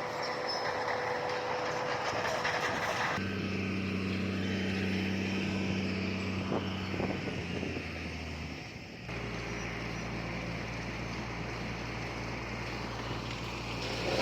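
Heavy diesel engine of earthmoving machinery running steadily with a low hum, its pitch and character changing abruptly twice, about three seconds in and again about nine seconds in.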